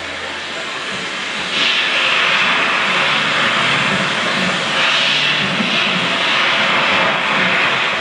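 A steady, loud rushing noise like a jet aircraft passing, with no clear tune, swelling louder about a second and a half in.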